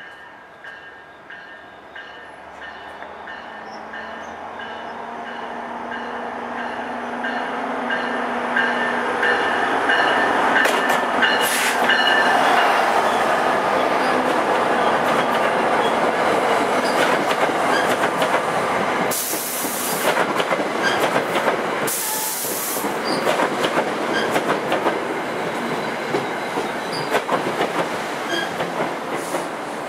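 NJ Transit diesel-hauled commuter train approaching and passing close by: the rumble builds for about twelve seconds as the locomotive nears, with a repeated ringing tone over the approach. Then the Comet passenger coaches roll past with wheels clacking over the rail, broken by two short loud rushes of noise about two-thirds of the way through.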